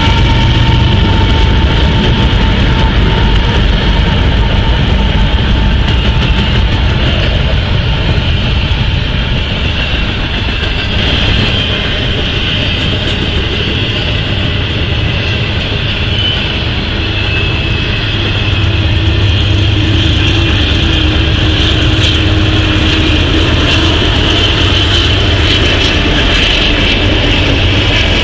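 A freight train passing: CSX GE diesel locomotives running as they go by, then the steady rumble and rolling clatter of the freight cars behind them. A horn chord trails off in the first second.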